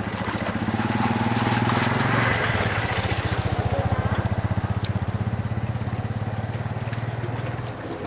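An engine running steadily with a rapid, even pulse, cutting off shortly before the end, over wind noise on the microphone.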